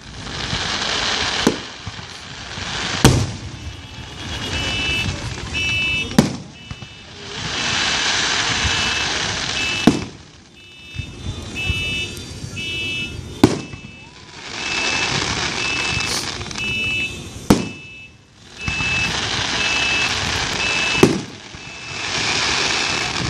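Aerial fireworks bursting with sharp bangs every three to four seconds, each bang followed by a long crackling hiss as the shell's stars spread. From about a fifth of the way in, an electronic alarm beeps over and over in short repeated tones.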